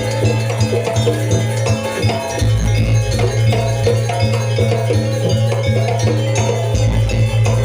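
Live gamelan music accompanying a Banyuwangi janger dance: quick, repeating metallophone notes over percussion and a steady low drone.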